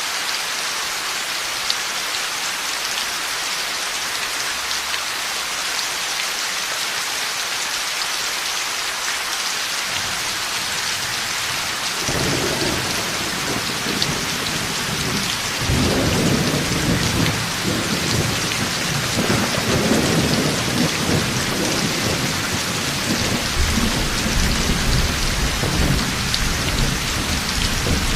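Heavy rain falling steadily, with thunder rumbling in about halfway through and rolling on, loudest a few seconds later and again near the end.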